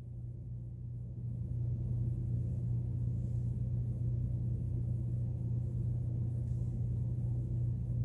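A steady low-pitched hum that grows slightly louder over the first two seconds, then holds.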